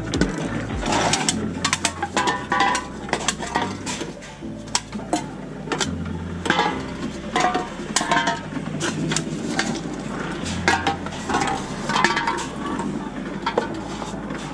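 Empty drink containers, mostly cans and plastic bottles, being fed one after another into a reverse vending machine: a steady run of clinks and clatters, with a low machine hum that starts and stops several times.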